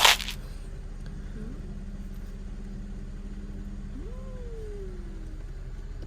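Steady low hum of a car engine idling, heard from inside the parked car. A short loud burst of noise right at the start, and about four seconds in a faint call that rises and then slides down.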